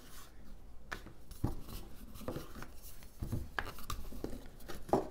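Stainless steel water bottle rolled back and forth over tortilla dough on a cutting board, used as a rolling pin: a soft rubbing and rolling sound broken by irregular light knocks and taps.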